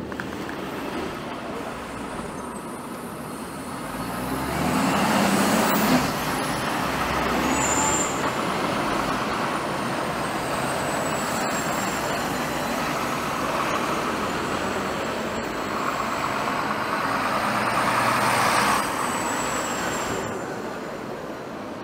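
Heavy vehicles driving past, the noise swelling twice: about four seconds in, and again near the end.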